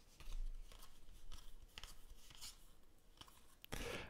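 Baseball trading cards being thumbed through by hand: a scatter of faint, irregular swishes and flicks as each card slides off the stack.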